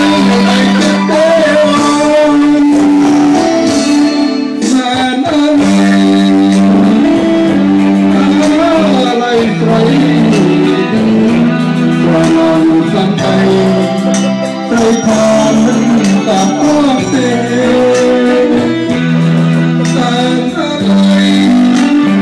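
A man singing karaoke into a handheld microphone over a recorded backing track, holding long, wavering notes.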